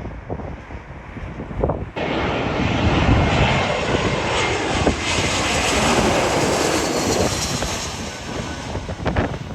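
Airliner's engines as it passes close on a landing approach, coming in suddenly about two seconds in and fading near the end. Wind gusts buffet the microphone before it.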